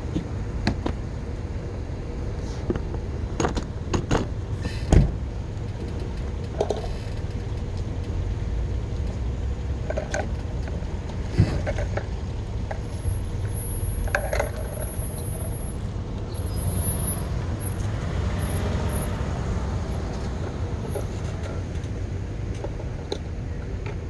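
Street traffic ambience: a steady low rumble of road vehicles, swelling a little late on as a vehicle passes. A few sharp knocks come in the first seconds, the loudest about five seconds in.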